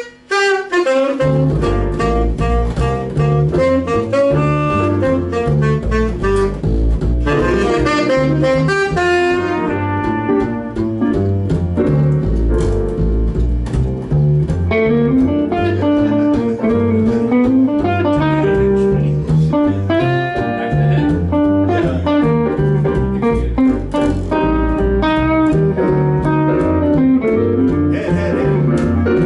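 Small jazz band playing a tune, with a tenor saxophone out front over a steady low bass line that comes in about a second in.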